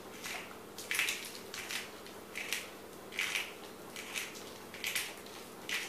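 Pepper mill grinding black pepper into a raw chicken's cavity: a run of short crunching grinds, a little over one a second.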